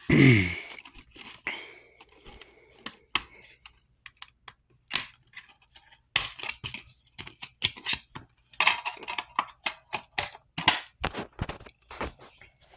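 A run of irregular sharp clicks and taps, like keys being struck, coming in two denser flurries in the second half.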